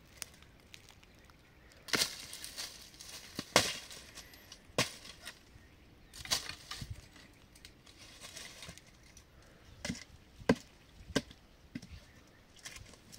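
Firewood being chopped: about nine sharp, irregularly spaced blows, the loudest a few seconds in and again past ten seconds.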